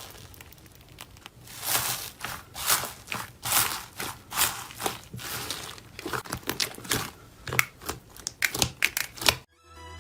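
Slime being squished and pressed, giving irregular crackling, crinkling pops in quick bursts. It cuts off suddenly near the end.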